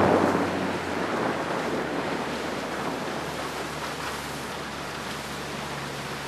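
Steady rushing noise of wind and water on open water, heard from a boat, with a low steady hum underneath. It is loudest at the start and eases off over the first few seconds before settling.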